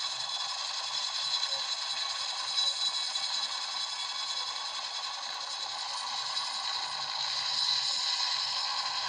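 Helicopter sound effect: a steady, high-pitched mechanical whir with many fixed tones and little low end, growing a little louder near the end.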